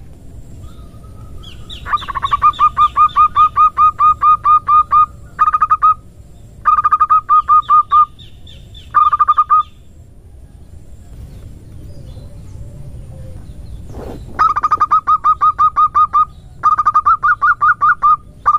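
Female zebra dove (perkutut) lure call in the rapid 'nutut ngerot' style: runs of short, clipped, evenly repeated notes, about six a second. The runs last from under a second to about three seconds, with brief pauses between them.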